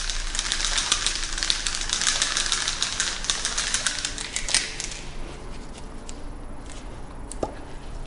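A bottle of auto-glass primer shaken hard, rattling rapidly and steadily for about five seconds, then stopping. A few light clicks follow.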